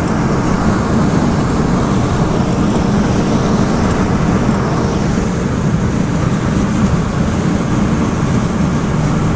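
Loud, steady wind and road noise in a car driving at highway speed, with a low rumble and buffeting.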